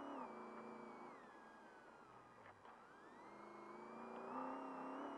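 Trophy truck's race engine heard from inside the cab: revs fall as the driver lifts off for a tight left corner, then climb steadily again from about three seconds in as it accelerates out.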